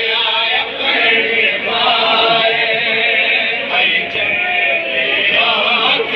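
Many men's voices singing a noha, a Shia mourning lament in Urdu, together as a steady chant with one note held underneath.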